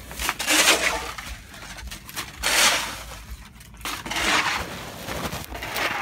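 Snow crunching and scraping in rough bursts about every second and a half, as snow is pushed and packed together.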